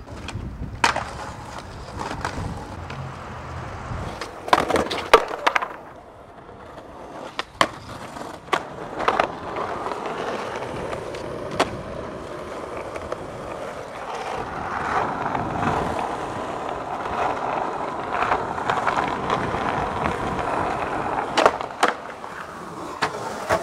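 Skateboard wheels rolling on asphalt, a steady rolling noise that grows louder in the second half, broken by sharp clacks of the board striking the ground: a cluster about five seconds in, single ones scattered after, and more near the end.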